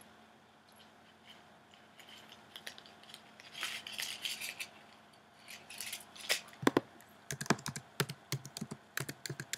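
Small jewelry pieces and their packaging handled by hand: soft rustling, then from about six seconds in a quick run of small clicks and taps.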